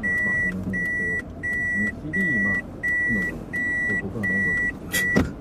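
A car's reverse-gear warning beeper sounding inside the cabin: one high electronic beep repeating steadily, about one and a half times a second, while the car backs up. The beeping stops a little after five seconds in, with a sharp click.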